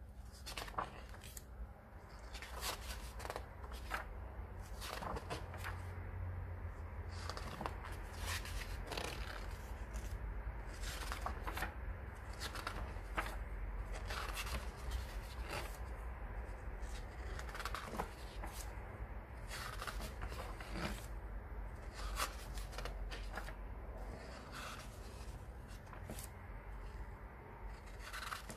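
Pages of a comic-book graphic novel being turned one after another: a short papery swish every second or two, over a low steady hum.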